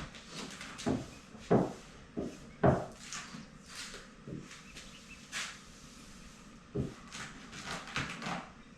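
Irregular knocks and thumps, the loudest two about a second and a half and nearly three seconds in, with scraping and rustling sounds in between.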